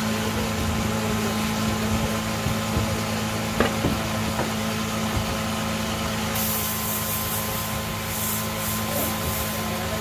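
A wood lathe's motor runs with a steady hum while a turning tool is held against the spinning wooden egg, with a couple of sharp clicks midway. About six seconds in, a pulsing high hiss of sandpaper rubbing the turning wood starts.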